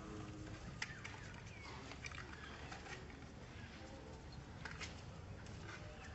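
Quiet outdoor background with a steady low rumble and a few faint, short chirps and clicks from a small animal.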